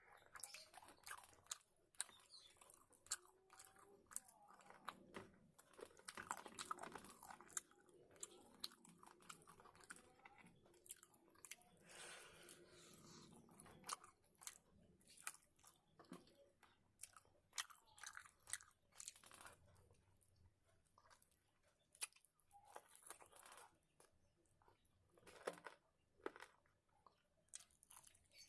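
A person chewing and biting food close to the microphone, with many short, sharp crunches at an irregular pace between softer chewing sounds.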